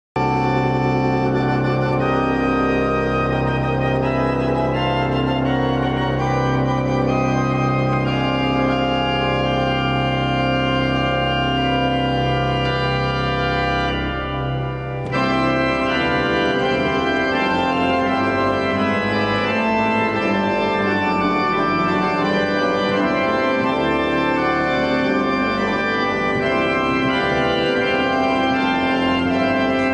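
Organ music starting abruptly: long-held chords over a steady bass for the first half, a brief dip in level about fifteen seconds in, then a busier passage of shorter moving notes.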